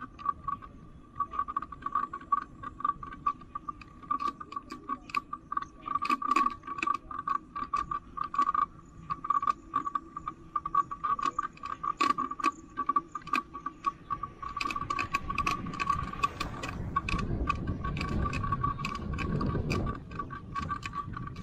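Bicycle ticking and rattling while being ridden: many irregular sharp clicks over a steady high whine. A low rushing noise builds in the last few seconds and cuts off suddenly.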